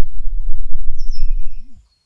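Loud low rumble on the microphone, with a small bird chirping briefly about a second in; the sound cuts off just before the end.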